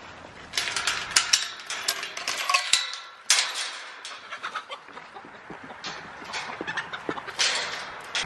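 Chickens clucking and squawking, with bursts of rustling and scuffling in dry leaves from about half a second in, again just after three seconds, and near the end.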